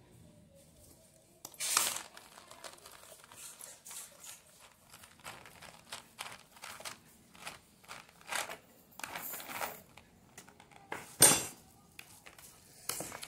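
Irregular crinkling, rustling and light clicks of food being handled in a bowl as raisins are added to a shredded-chicken salad and mixed in. There is a sharp knock about two seconds in and a louder one near the end.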